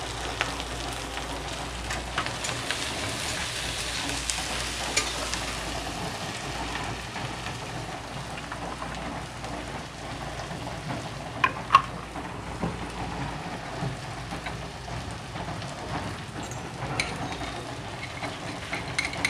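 Chopped onion, garlic, ginger and whole spices sizzling as they fry in oil in a steel kadai, with a few sharp clinks of the metal spatula against the pan near the middle.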